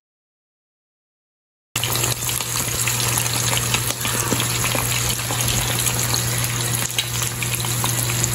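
Two eggs frying in hot oil in a nonstick pan, sizzling and crackling steadily, starting suddenly about two seconds in after silence, with a steady low hum underneath.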